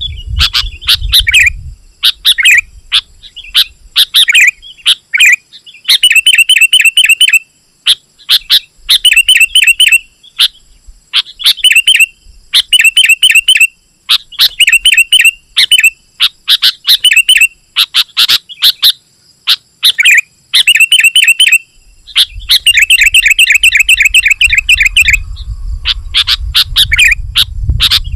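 Sooty-headed bulbul (kutilang) singing loudly in rapid, chattering phrases about a second long, repeated again and again with short gaps. A low rumble runs under the song from about two-thirds of the way through.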